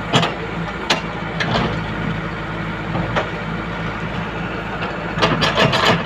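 JCB 3DX backhoe loader's diesel engine running steadily as the backhoe arm digs soil. Several sharp clanks from the arm and bucket cut across the engine's drone, with a quick cluster of them near the end.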